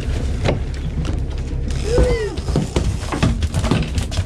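Boat engine running with a steady low rumble, overlaid with a string of sharp mechanical clicks and rattles. About two seconds in there is one short rising-and-falling tone.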